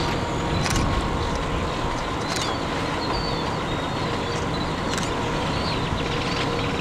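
Steady wind noise over an idling vehicle engine, with a few faint high chirps and several brief clicks.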